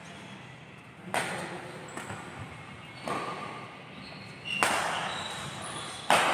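Badminton rackets hitting the shuttlecock four times in a rally, about one every one and a half seconds. Each hit is sharp and echoes in a large hall, and the last is the loudest.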